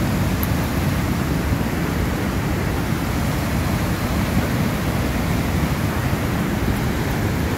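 Fast mountain river rushing over boulders in white-water rapids: a steady, deep roar of water with no breaks.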